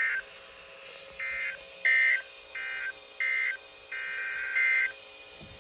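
SAME digital data bursts from NOAA Weather Radio, the end-of-message code: a string of short, harsh two-tone electronic bursts, each about a third of a second long, in quick succession.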